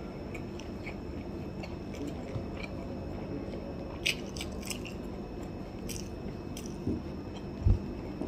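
Biting and chewing boiled corn on the cob: soft wet mouth clicks scattered throughout, with a low thump near the end.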